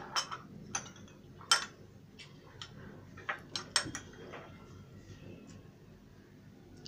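A metal spoon knocking and clinking lightly against the pan at irregular intervals while ras malai balls are pushed aside in thickened milk. The loudest knock comes about a second and a half in.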